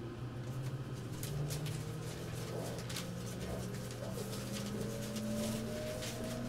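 Running noise inside an E257-series electric express train car: several whining tones from the traction motors rise slowly in pitch as the train gathers speed, over a steady low hum, with scattered faint clicks.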